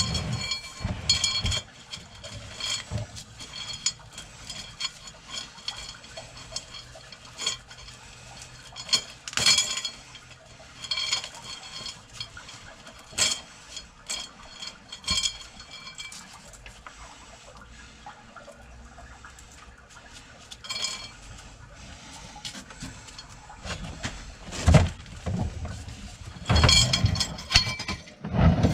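Sewer drain snake cable and cutter clinking and knocking as the line is worked, with a faint steady high whine underneath. The cutter has just brought up tree roots from the main sewer line.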